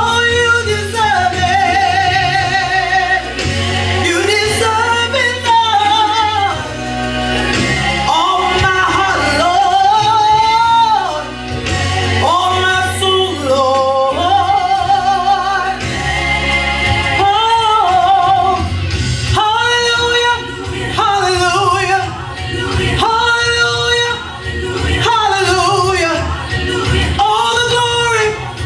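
A woman singing a gospel solo into a microphone, with long held, ornamented notes and vibrato, over an instrumental backing with a steady bass line.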